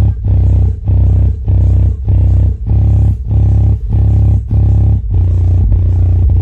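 5-inch subwoofer playing a bass-heavy music track as a sound check: a deep, even bass beat about every 0.6 seconds, with little treble.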